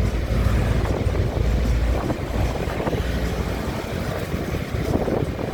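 A vehicle engine running with a low rumble that weakens about two seconds in, with wind noise on the microphone.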